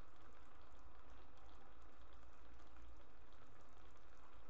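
Faint, steady simmering hiss of sarson ka saag cooking in a kadhai on the stove.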